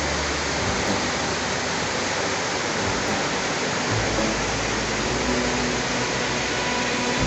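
Waterfall rushing: a steady, dense noise of falling water.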